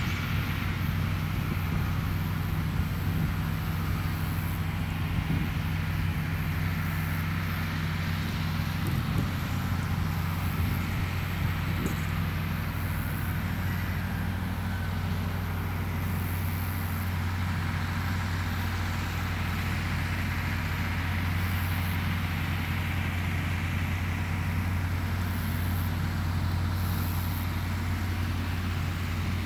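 International Harvester 1066 tractor's diesel engine running at a steady speed under load while round baling hay, an even, unbroken drone with a strong low hum.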